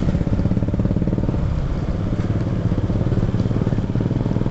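Engine of a Suzuki motorcycle running steadily in slow traffic, heard from the rider's seat with a rapid, even pulsing.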